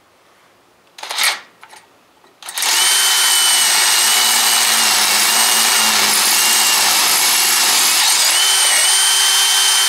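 Power drill boring a 5/16-inch bit into a broken-stud hole in a cast-iron small-block Chevy exhaust manifold, opening it up for a 3/8-16 tap. A short burst of the drill about a second in, then it runs steadily with a high whine from about two and a half seconds on, the pitch sagging briefly a couple of times under load.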